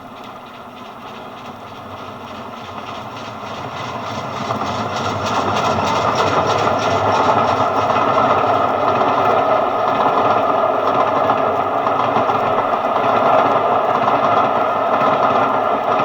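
A train approaching, growing louder over the first six seconds, then running past close by with a steady, loud rumble and clatter.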